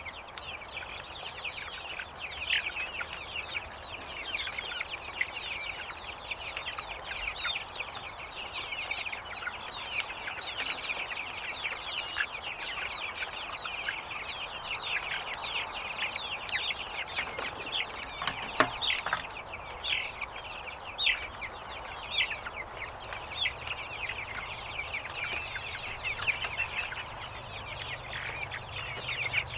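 Many baby chicks peeping, a dense run of short, high chirps that each slide down in pitch, over a steady high drone of insects. About two-thirds of the way in, one louder sound slides down in pitch.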